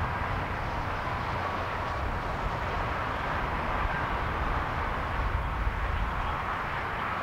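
Steady noise of highway traffic passing, with a low fluttering rumble underneath.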